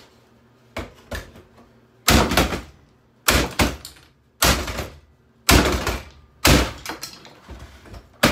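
Hammer striking a boombox being smashed apart: two light taps, then five heavy blows about a second apart, each followed by a short rattle of loose parts, and one more sharp hit near the end.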